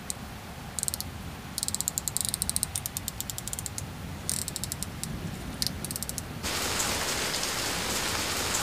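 Runs of quick ratcheting clicks from a mantel clock's movement as its hands are turned by hand. About six seconds in, this gives way abruptly to steady rain.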